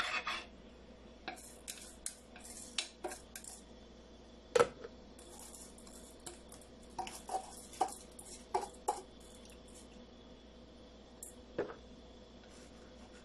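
Stainless steel bowl and chopsticks clinking and knocking as washed rice is scraped and tapped out of the bowl into a clay pot. The knocks come at irregular intervals; the loudest is about four and a half seconds in, with a run of quicker taps a few seconds later.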